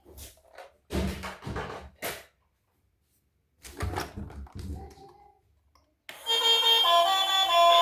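Thuds and knocks from a boxed toy being handled, in two short bunches. Background music starts about six seconds in.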